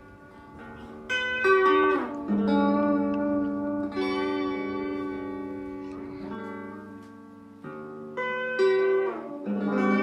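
Instrumental background music: guitar-like plucked notes over held chords, with a note sliding down in pitch twice, near 2 seconds and near 9 seconds.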